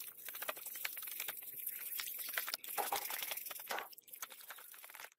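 A stiff bristle scrub brush scrubbing a plastic power-tool housing in soapy water: rapid, scratchy back-and-forth strokes with brief pauses between bursts.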